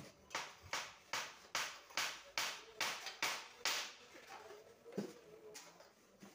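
A board scraped back and forth across the top of a steel concrete-block press mould, levelling the cement mix into the cavities. There are about nine rasping strokes at roughly two a second, then quieter scraping with one knock about five seconds in.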